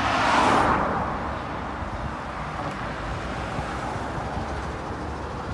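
Steady outdoor road noise with wind buffeting the microphone; a swell of hiss in the first second fades away, like a vehicle going past.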